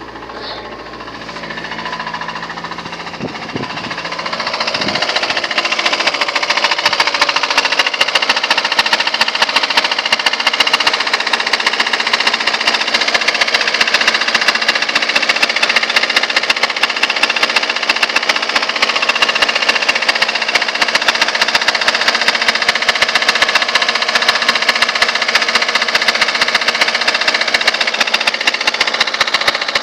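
Car engine running with a loud, rapid metallic knocking, building up over the first six seconds or so and then holding steady. The owner takes it for either connecting-rod knock or a failed oil pump, with the oil-pressure warning light staying on.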